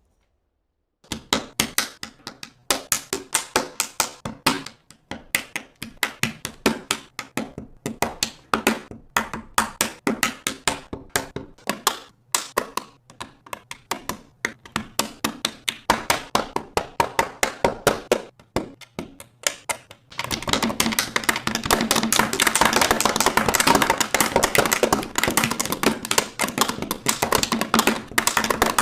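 Plastic Lego bricks being handled and snapped together: irregular clicks and clacks a few at a time, then from about twenty seconds in a dense, rapid clatter of bricks.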